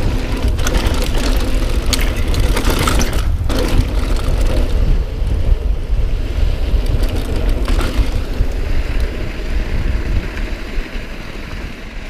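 Mountain bike rolling along a dirt trail: wind rumbling on the camera microphone over the rattle of tyres and frame on the ground, roughest in the first few seconds and easing off near the end.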